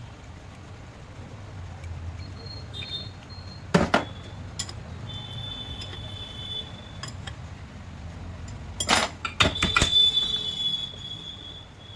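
Metal parts and tools clinking and knocking against each other, each knock leaving a high ringing tone: a couple of sharp strikes about four seconds in and a louder cluster near the end, over a low steady hum.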